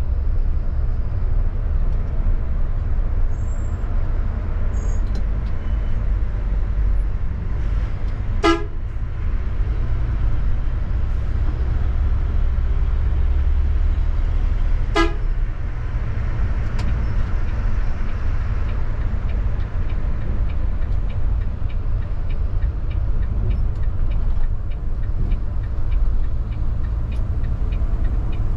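Steady low rumble of a Volvo B9R coach running at highway speed, heard from the cab, with two short horn blasts to warn the lorries ahead, about a third of the way in and about halfway through. Faint regular ticking, about two a second, in the later part.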